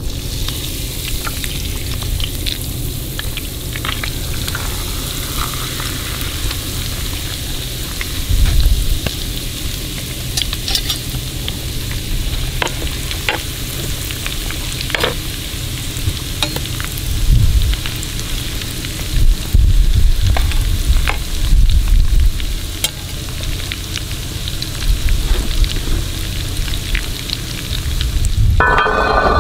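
Cornmeal-battered rattlesnake deep-frying in hot oil in a cast-iron skillet: a steady sizzle with scattered small pops from the oil, under occasional low rumbles.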